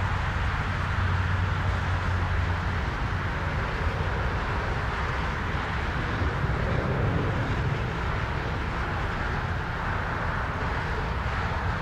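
De Havilland Dash 8-400 turboprop running steadily: an even rush of engine and propeller noise over a low hum, the hum strongest in the first few seconds.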